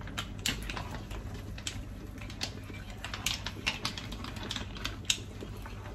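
Clam shells clicking irregularly against each other and the pan as tongs stir them through a simmering tomato sauce, several clicks a second over a low, steady background.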